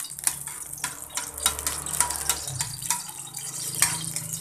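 Cooking fat sizzling and crackling as it melts and heats in an aluminium wok, with a low steady hum underneath.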